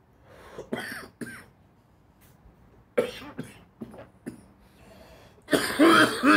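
A man coughing and clearing his throat in several separate bouts, the last and loudest near the end.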